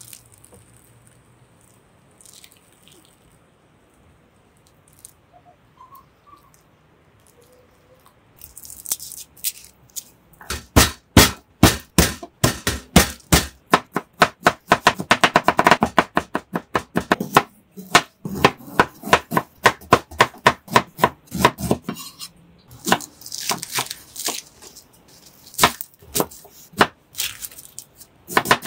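Chef's knife chopping garlic cloves on a bamboo cutting board: quick, regular knife strikes on the board, several a second, starting about ten seconds in with a brief pause near the end. Before the chopping it is nearly quiet.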